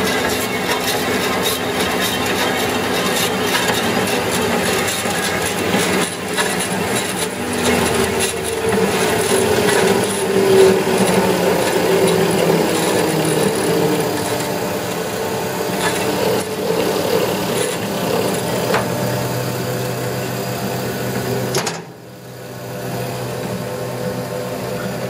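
An 18-inch three-phase vertical band saw running, with its blade moving and a steady mechanical whirring and hum. About 22 seconds in, the higher noise drops away sharply, leaving a quieter low hum.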